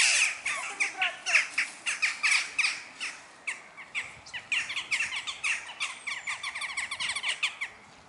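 A group of western jackdaws calling: many short calls in quick succession, overlapping, while males squabble over females. The calling thins out and stops just before the end.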